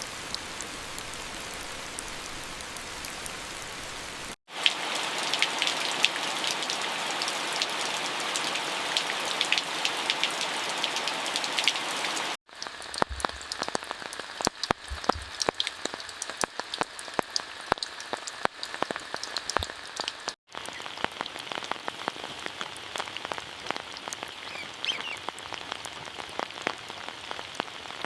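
Rain falling, with a dense patter of individual drops striking surfaces. The rain cuts out abruptly three times, about 4, 12 and 20 seconds in, and resumes each time with a different sound.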